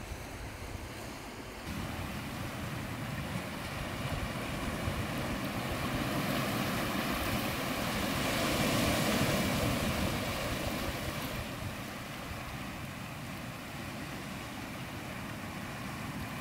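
Sea surf washing over a rocky shore, with wind on the microphone; the wash swells through the middle and then eases off.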